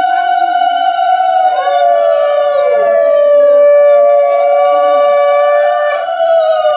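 Conch shells (shankha) blown together in long, steady notes at slightly different pitches that overlap. Each note sags downward as it ends and a new one starts; they are the conch blasts sounded for an auspicious Hindu ritual.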